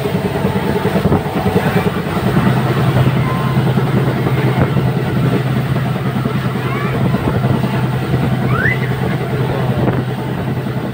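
Moving passenger train heard from an open coach door as an oncoming Chennai Egmore Express passes close alongside on the next track: loud rushing and rattling of wheels and coaches, with a steady low hum from about two seconds in.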